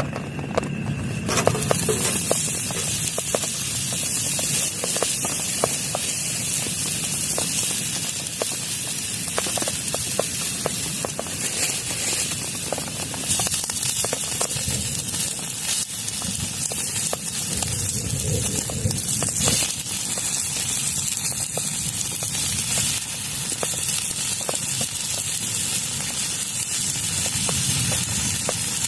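Heavy rain pattering densely on a plastic tarp, a steady crackling hiss of countless drops that thickens about a second in.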